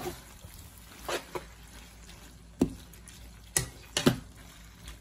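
Metal fork and spoon clinking against a frying pan while tossing spaghetti and meatballs: about half a dozen short sharp clinks, spaced irregularly.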